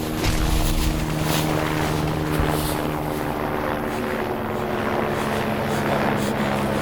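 Steady drone of a helicopter's engine and rotor, with a few dull low knocks near the start.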